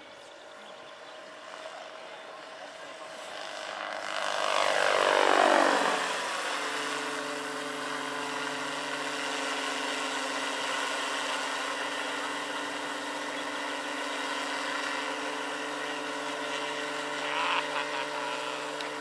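Large electric scale model helicopter (AS-350 Ecureuil, 2.5 m rotor) in flight: the whine of its electric motor and rotors. About five seconds in it is loudest, and the whine sweeps sharply down in pitch as it passes close. After that it settles into a steady, even whine.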